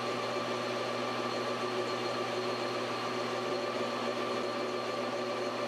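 Metal lathe running steadily with a constant hum and whine while a cutting tool turns down a steel rod.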